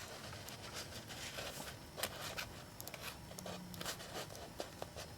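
Faint scraping and scattered light clicks of a plastic action figure being handled.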